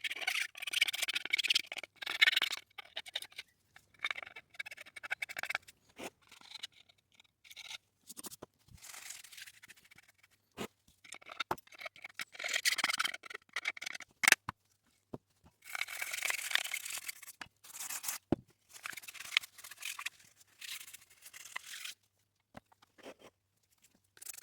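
A brush scrubbing a chainsaw's metal mesh screen air filter in repeated bursts of scratchy strokes to clear the dirt, with a few sharp clicks and knocks between bursts.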